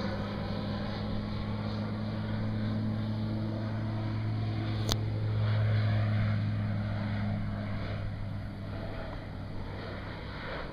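Thrush 510 crop-dusting plane's engine and propeller droning as it passes low, growing louder to a peak about halfway and then fading as it flies off. A single sharp click about halfway through.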